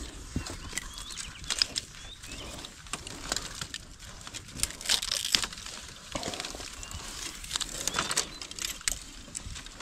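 Dry bamboo twigs and leaves crackling and rustling as a hand pushes through a bamboo thicket to break off young green bamboo side-shoots, with scattered sharp snaps.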